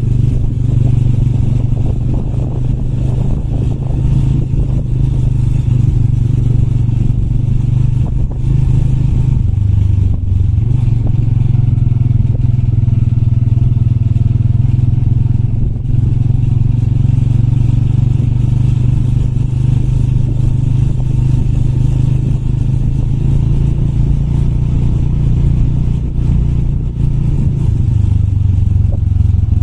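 Motorcycle engine running steadily at low revs while riding, with small rises and falls in engine speed and some clatter over rough ground.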